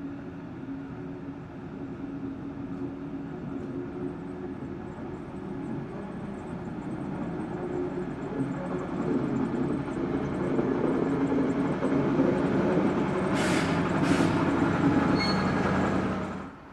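ÖBB class 2062 diesel locomotive hauling a passenger coach, its engine running with a steady drone that grows louder as it approaches and passes close by. About two thirds of the way in there are two short sharp noises from the train, and near the end the sound cuts off suddenly.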